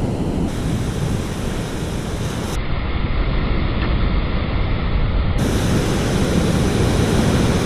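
Breaking surf and wind rushing over the microphone: a steady, loud rush of noise, heaviest in the low end, that changes abruptly a few times.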